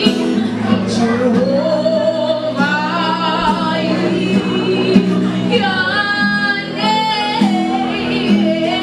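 A woman singing a gospel song into a handheld microphone over steady instrumental backing, with long held notes.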